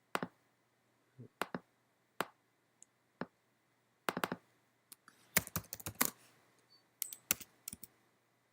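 Computer keyboard keystrokes and mouse clicks, sharp and irregular: a few single clicks, then a quick run of keystrokes about five seconds in.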